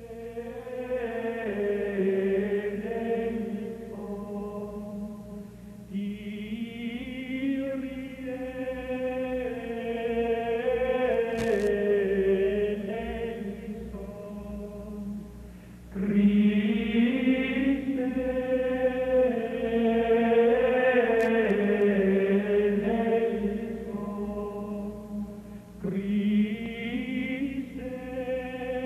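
A choir singing a slow chant in long phrases, with a new phrase starting about every ten seconds.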